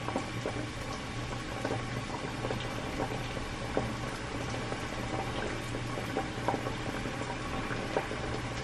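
Kitchen background: a steady low hum under a faint crackling hiss, with a few light ticks.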